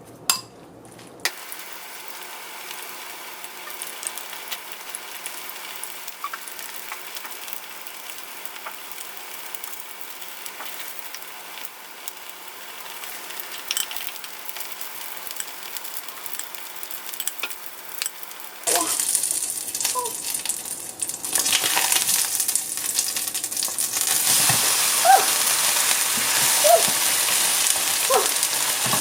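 Food sizzling as it fries in a pan, growing much louder about two-thirds of the way in, with occasional clicks and short scrapes of a utensil against the pan.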